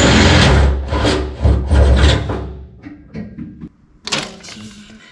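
Power drill boring through steel, surging a few times and stopping in the first couple of seconds, followed by scattered knocks and clatter.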